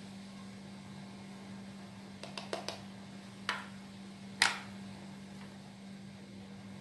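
Kitchen utensils and a mixing bowl being handled: a quick run of light clicks, then two knocks, the second and loudest about four and a half seconds in. A steady low hum sits underneath.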